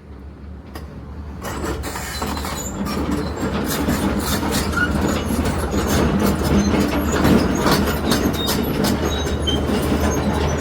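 A steady low mechanical rumble with many irregular clicks and rattles over it, fading in over the first second or two.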